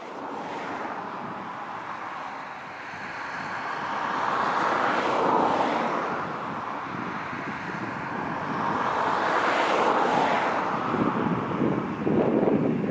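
Jet engines of an Airbus A318 airliner running during its departure, a steady rushing noise that swells twice, with wind buffeting the microphone near the end.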